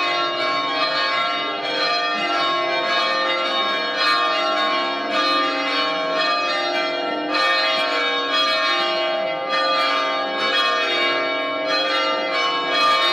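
Church bells pealing for a wedding: many strokes in quick succession, each tone hanging on into the next so the ringing never stops.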